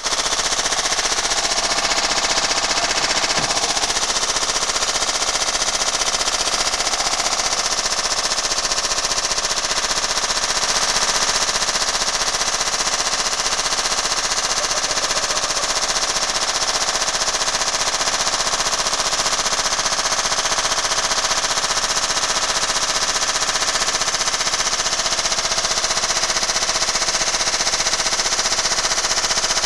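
Washing machine running out of control and shaking itself apart: a loud, fast, continuous hammering clatter that holds steady throughout.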